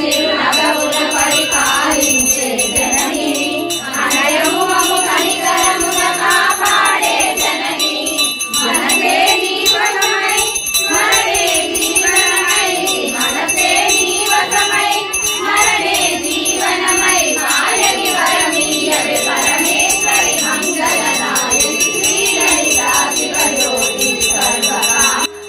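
A group of women singing a Telugu mangala harathi song together as the aarti lamp is offered, with a bell jingling rapidly over the singing. The song stops suddenly at the end.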